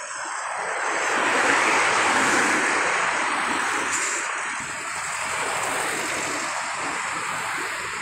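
Road traffic passing close by: rushing tyre and engine noise that swells over the first couple of seconds, then holds steady.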